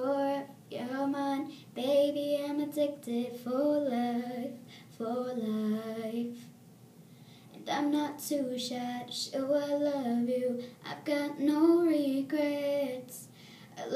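A girl singing unaccompanied, in phrases of held and gliding notes, with a short pause about halfway through.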